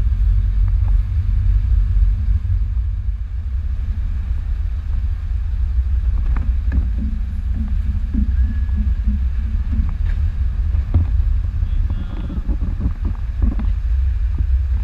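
Low rumble of a ship under way, with wind buffeting the microphone on the open deck, and a few faint knocks in the middle.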